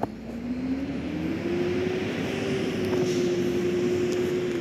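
Garbage truck running, its drone climbing in pitch over the first couple of seconds as it revs up, then holding steady at the higher pitch.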